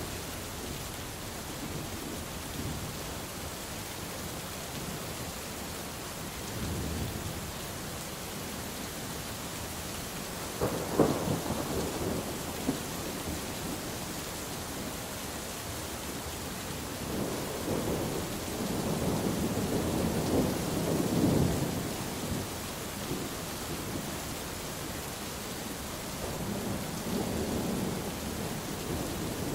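Steady rain falling through a thunderstorm. Thunder rumbles faintly about seven seconds in; a sudden clap about eleven seconds in is the loudest moment; a long rolling rumble builds and fades between about seventeen and twenty-two seconds; a softer rumble comes near the end.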